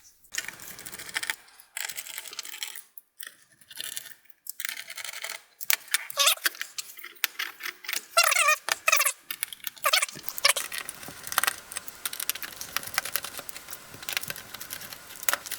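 Small metal clicks and clinks of a screwdriver working the screws out of a heatsink, with loose screws rattling. A few short squeaks come between about six and nine seconds in.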